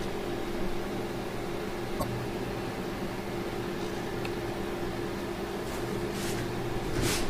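Steady machine hum, as from fans or electronics, holding several fixed pitches over a hiss. There is a single sharp click about two seconds in, and a rustling noise swells near the end.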